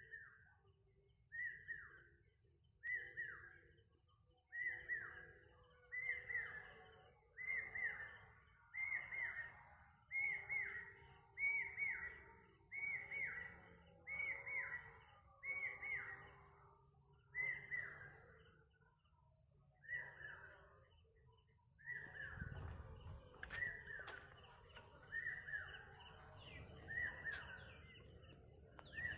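A bird calling over and over, a short falling call about once every second and a half, with fainter high chirping behind it. A low rumble joins in over the last several seconds.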